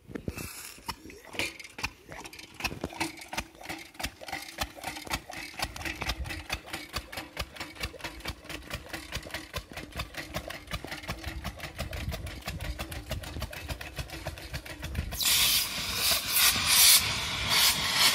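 Homemade bicycle steam engine chuffing in a rapid, even rhythm as it runs. About fifteen seconds in, a loud rushing hiss of escaping steam starts over the chuffing as a connector on the engine fails.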